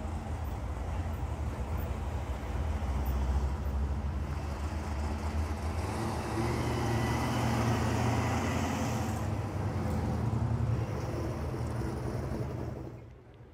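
A car engine running close by with a deep rumble. It grows louder about six seconds in, then drops away abruptly near the end.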